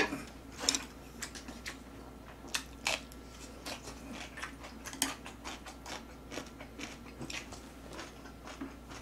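Quiet eating sounds: chewing, with scattered short clicks and taps of chopsticks and a spoon at a metal pan.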